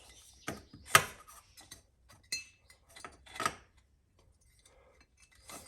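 Electrical wire and tools being handled while the wire is fed through for an outlet: a handful of sharp clicks and metallic clinks, the loudest about a second in, one with a brief ring.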